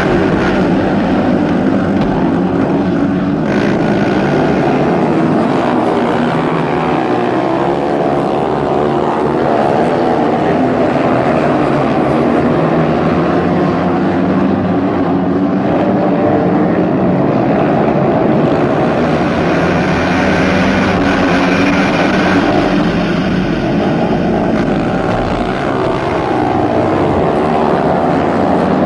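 Several racing motorcycle engines running together at speed, their pitch rising and falling as they go.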